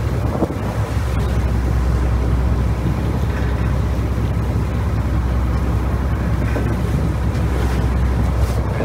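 Lobster boat under way: the engine's steady low drone, with wind and the rush of water over it.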